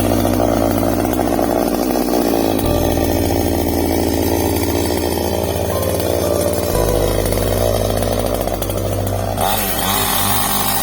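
Ibell chainsaw running loudly at high revs. Its pitch dips and climbs again near the end.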